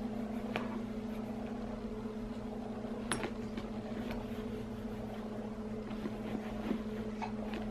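Steady low electric hum from the motor of a baby's Rock 'n Play rocking sleeper. Over it come faint rubbing and a small click about three seconds in, as a cloth rag wipes a metallic leather tote.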